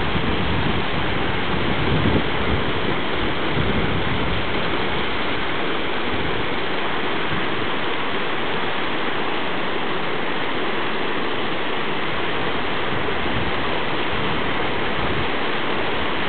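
Steady rushing of a fast mountain meltwater stream running over rocks.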